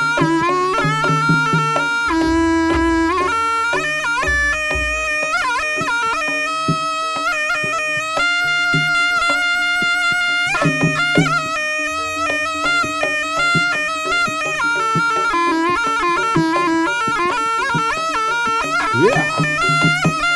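Jaranan ensemble music led by a slompret, the Javanese double-reed shawm, playing a nasal, sustained melody over low drum beats.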